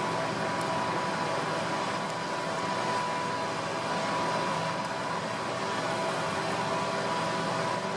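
Honeybee colony in an open hive buzzing with a steady hum.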